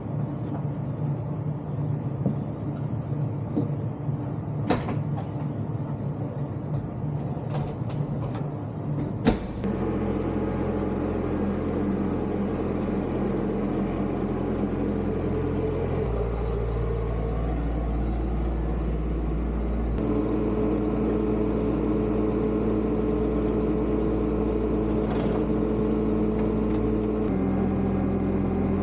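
Diesel engines running: a steady idle with a few sharp clicks and clunks, then a loud clack about nine seconds in, after which a louder engine runs on, its speed stepping up and down a few times.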